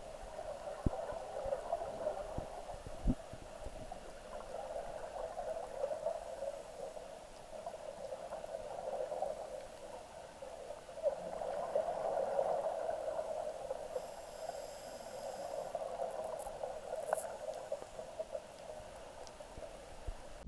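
Muffled underwater water noise picked up by a submerged camera: an uneven, gurgling wash that swells for a couple of seconds around the middle, with a few faint clicks.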